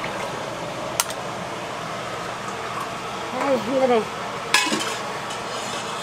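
Seafood pancake batter frying on a large steel griddle with a steady sizzle, and two sharp clanks of a metal spatula on the griddle: one about a second in, and a louder one past the halfway mark.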